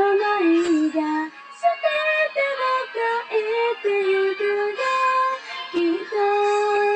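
A female voice sings a held, stepping melody line of a Japanese pop song over a karaoke backing track.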